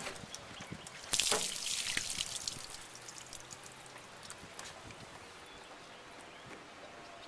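Water trickling and dripping, with a louder splashing rush about a second in, as toothpaste is washed off a buffed headlight lens.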